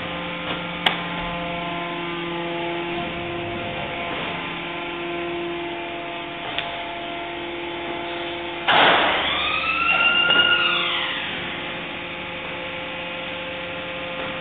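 Recycling plant machinery running with a steady hum of several held tones, with a sharp click about a second in. About two-thirds of the way through, a sudden loud rush of noise with a high screech that rises and then falls, lasting about two seconds.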